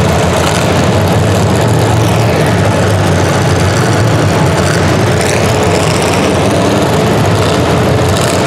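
A vehicle engine running steadily and loudly at a low idle-like rumble.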